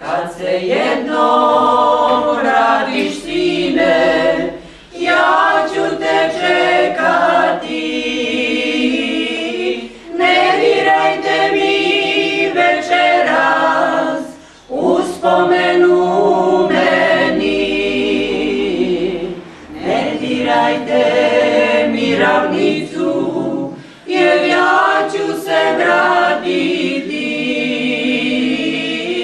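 Four-woman vocal group singing a cappella in harmony, in phrases of about four to five seconds with short breaks for breath between them.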